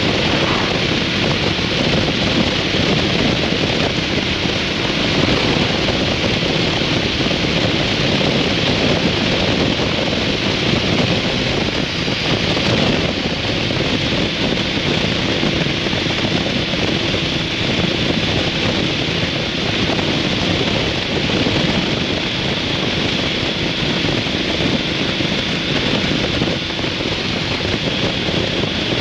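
Steady wind noise on the microphone of a riding 2003 Harley-Davidson V-Rod, with the bike's liquid-cooled Revolution V-twin running steadily underneath.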